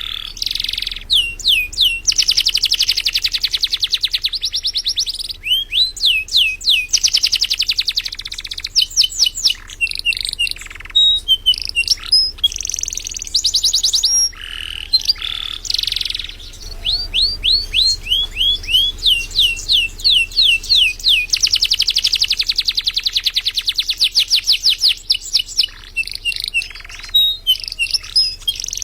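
Domestic canary singing in full, vigorous song: long phrases of fast trills and rapidly repeated falling notes, broken by short pauses.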